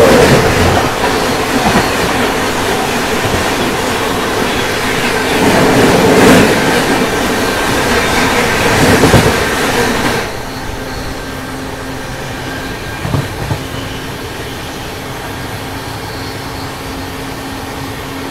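Double-decker express train running on the rails: loud, rushing wheel-and-track noise for about ten seconds, then dropping suddenly to a quieter steady rumble with a low hum.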